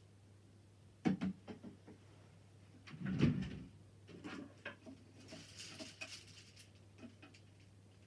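Objects being handled close to the microphone: scattered small clicks and knocks, a louder dull thump about three seconds in, and a brief rustle a couple of seconds later, over a faint steady hum.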